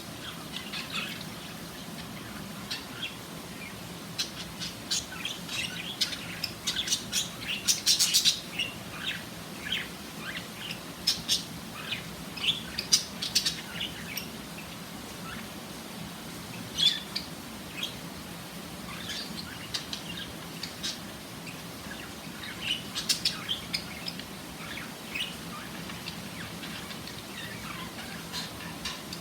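Pet budgerigars chirping: short, irregular high chirps throughout, in denser flurries about eight seconds in and again near twenty-three seconds.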